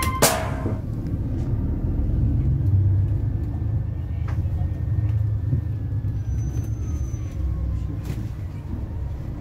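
Intercity coach bus engine and road rumble heard from inside the passenger cabin as the bus pulls out, with a faint whine slowly falling in pitch.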